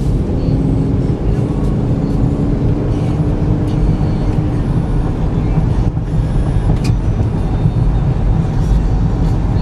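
Steady low road and engine rumble heard inside the cabin of a 2013 GMC Terrain while it is being driven, with a faint hum that fades out about halfway through.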